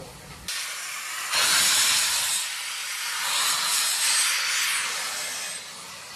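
BR Standard Class 5 4-6-0 steam locomotive 73156 letting off steam: a loud, steady hiss that starts suddenly about half a second in, swells about a second later and eases off toward the end.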